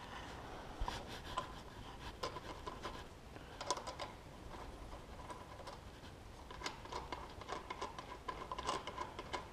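Faint, irregular metallic clicks and ticks of a hex key working the top cap bolt loose on a bicycle's threadless headset.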